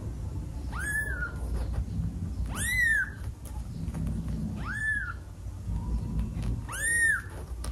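Newborn kitten mewing: four short, high-pitched cries about two seconds apart, each rising and then falling in pitch.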